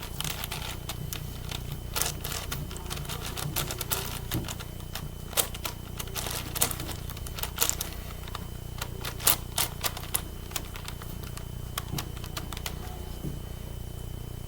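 Plastic clicking and clacking of a 9x9 Rubik's cube as its layers are turned, in quick irregular runs of clicks with brief pauses between.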